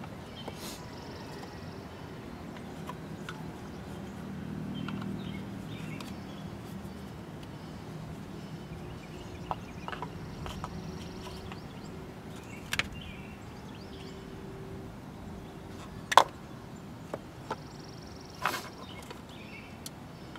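Rubber spark plug wire boots being pulled off and pushed onto distributor cap terminals, making a scattered handful of sharp clicks and snaps, the loudest about sixteen seconds in.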